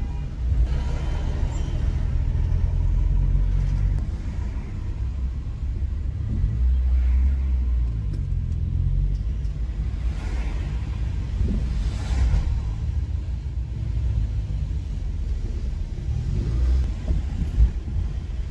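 A car driving slowly in town traffic: a steady low rumble of engine and road noise, with a short thump near the end.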